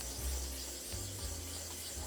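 A 1000 grit dressing wafer rubbed in circular motions across the face of a 1500 grit diamond sharpening stone: a continuous gritty scraping as the wafer smooths away coarse scratches from a 120 grit flattener. Background music with low bass notes plays underneath.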